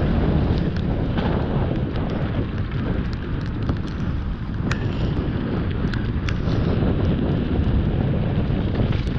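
Wind rushing over a helmet-mounted action camera's microphone during a fast mountain bike descent, a steady low rumble with many short clicks and rattles from the bike on the rough, wet dirt trail.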